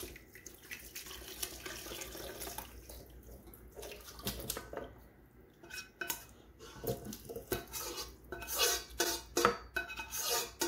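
A ladle scraping and clinking against a metal pot as cooked butternut squash and broth are scooped out, with short pours of soup. The knocks come thick and fast in the second half.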